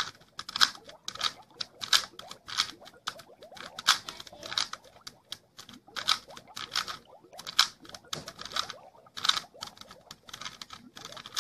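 Plastic Rubik's Cube layers being twisted over and over, each turn a short clicking rasp, about two turns a second.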